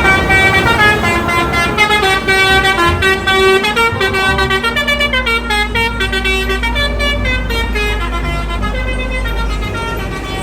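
Indonesian bus telolet musical horn playing a tune of stepped notes, one pitch after another without a break, over the low hum of the bus's engine.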